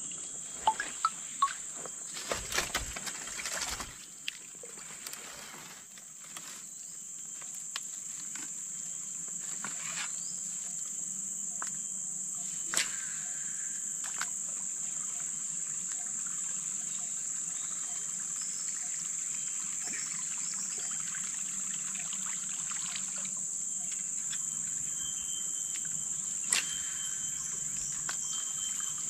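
Steady high-pitched drone of insects, with a few sharp clicks and ticks in the first few seconds and single clicks about halfway through and near the end.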